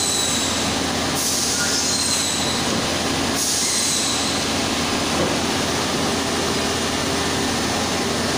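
Steady factory machinery noise: a continuous hum and hiss with a low tone underneath. A sharper, higher hiss cuts in about a second in and stops about two seconds later.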